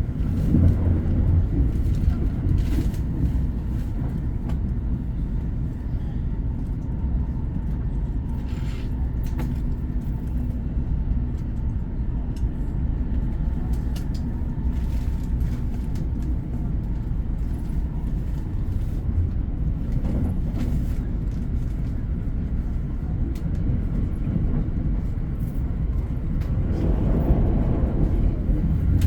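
Train running: a steady low rumble, with a few faint clicks and a slight swell near the end.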